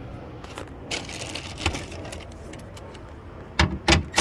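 Light metallic clicks and clinks of a hand tool on a 10 mm bolt inside a car door, then two louder knocks near the end.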